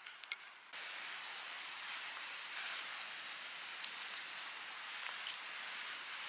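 A small knife trimming a chanterelle mushroom in the hand: a few faint clicks and scrapes over a steady outdoor hiss, which starts abruptly just under a second in.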